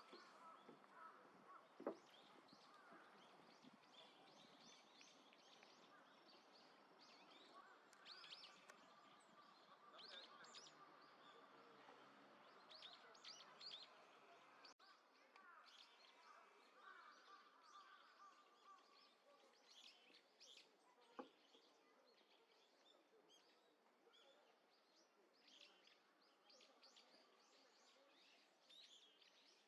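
Faint, scattered chirps and short calls of small songbirds over a low, steady background hum. A sharp click sounds about two seconds in and another about 21 seconds in.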